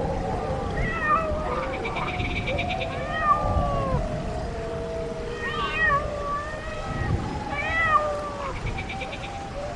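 Several animal calls overlapping, gliding up and down and arching in pitch, over a steady rushing background; a short, rapid high trill sounds twice, near the start and near the end.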